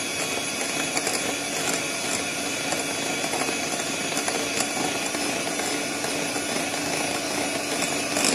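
Electric hand mixer running steadily at a constant speed, its beaters whipping a thick chocolate buttercream in a glass bowl, with a steady motor hum and a few light ticks.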